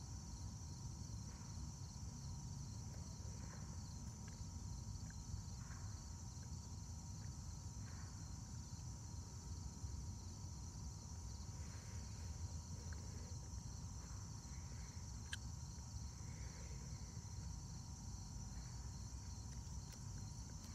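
Faint, steady high-pitched chorus of insects, with a low rumble underneath and a single sharp click about fifteen seconds in.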